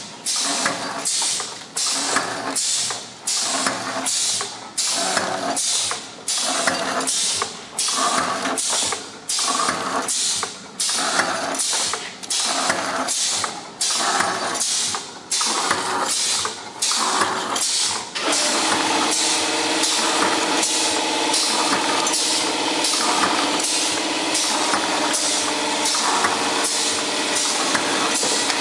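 DXD 80K automatic granule packing machine running its packing cycle: an even mechanical clatter that repeats a little more than once a second. About 18 seconds in the rhythm stops and a steady machine hum with a droning whine carries on.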